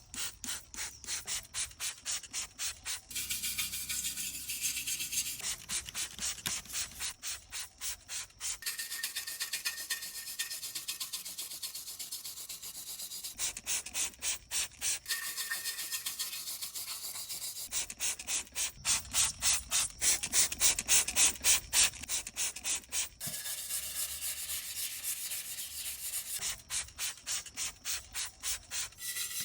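Rapid back-and-forth scrubbing of the rusted metal of a car's center console frame, about three to four strokes a second. It comes in runs of a few seconds with short pauses and is loudest about two-thirds of the way through: rust being worked off the frame.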